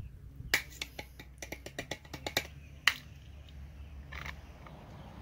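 Small metal parts of a cut-open fuel pressure regulator clicking and tapping as they are handled and set down on concrete: a quick run of about a dozen sharp clicks, the loudest at the start and near the end of the run, then one more click.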